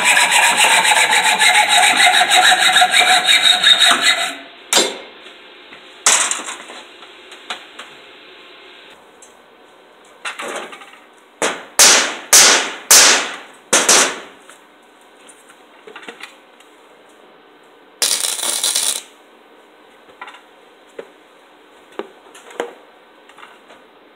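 Saw cutting steel pipe clamped in a bench vise, in rapid strokes that stop abruptly about four seconds in. Then come scattered clinks and knocks of metal parts on a steel workbench, with four loud raps close together in the middle and a one-second rasping noise a few seconds later.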